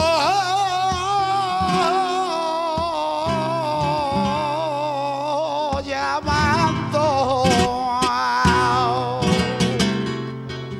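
Male flamenco singer holding a long, wavering, ornamented phrase in a bulerías por soleá over flamenco guitar, his line slowly sinking in pitch. The voice ends near the end, and the guitar comes forward with strummed chords.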